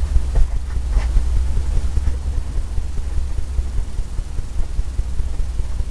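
Steady low rumble of background room noise, with a faint short scrape about a second in.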